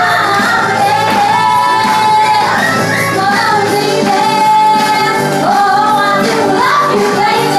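A woman singing live over instrumental accompaniment, holding long notes with bends in pitch.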